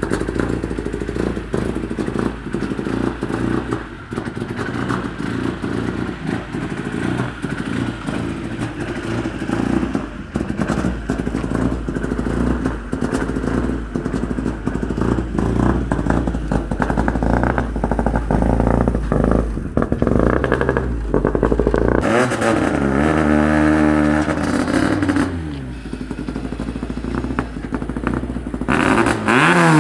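Toyota Corolla S2000 rally car's naturally aspirated four-cylinder engine idling with a clattery, uneven note. About 22 seconds in it is blipped several times in quick succession, the revs rising and falling sharply, and it is revved again near the end.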